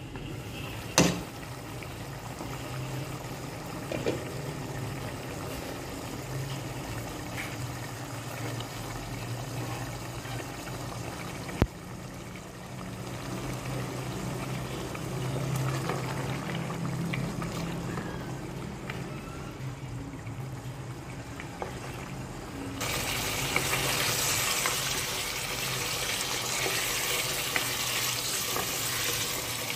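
Pot of mutton nihari simmering, a steady bubbling with a low hum under it and sharp clicks about a second in and near the middle. About two-thirds of the way through the sound turns suddenly brighter and hissier as the thickened gravy is stirred with a wooden spatula.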